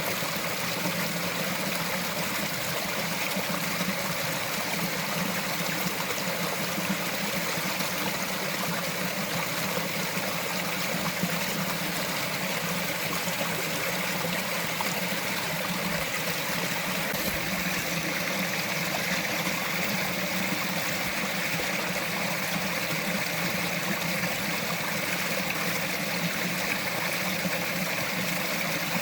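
Small forest stream flowing steadily, a constant sound of running, trickling water.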